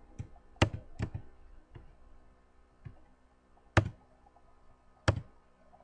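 Scattered single keystrokes on a computer keyboard: about seven separate clicks spread out with gaps between them, four of them louder than the rest.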